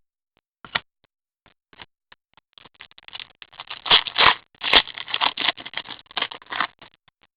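Hockey trading cards being handled: a run of quick scraping and rustling, busiest in the middle few seconds.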